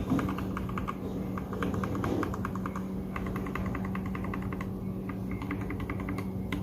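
Rapid keystrokes on a Royal Kludge G68 mechanical keyboard, typed in quick runs with two short pauses, on freshly lubed switches.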